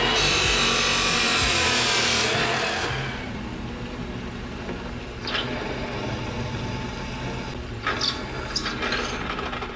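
Abrasive chop saw cutting through steel stock for about the first two and a half seconds. Then a bench drill press runs and drills the steel bracket, with a few sharper moments as the bit bites, around five seconds in and again near the end.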